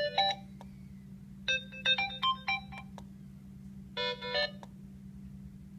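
Binatone Brick handset's speaker playing short previews of its built-in ringtones, each a snatch of electronic melody cut off after about a second as the next tone is selected: one ending just in, another from about a second and a half in, and a brief one about four seconds in.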